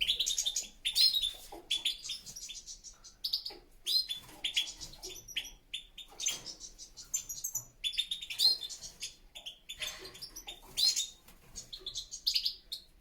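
European goldfinches singing: rapid, twittering chirps and trills, coming in quick phrases with short pauses between.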